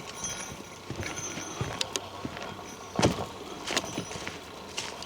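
Footsteps of a person walking, irregular steps and scuffs with a louder thump about three seconds in.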